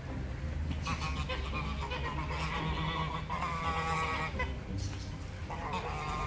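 Domestic geese honking in a long, squabbling run of loud calls, starting about a second in and coming back near the end.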